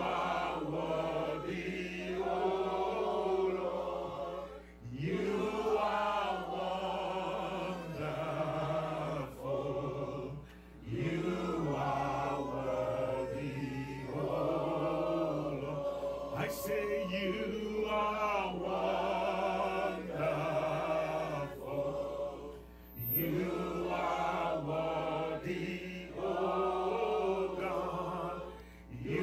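Voices singing a slow, chant-like worship chorus in long phrases, with brief breaks every several seconds, over a steady low hum.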